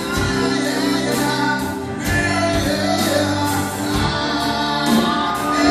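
Live band playing a song: strummed acoustic and electric guitars, bass and drum kit, with a voice singing over it in the second half.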